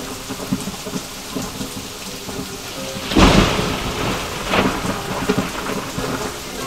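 Heavy rain pouring down steadily, with a loud, sharp thunderclap about three seconds in that rolls off over a second or so, followed by a smaller crack shortly after.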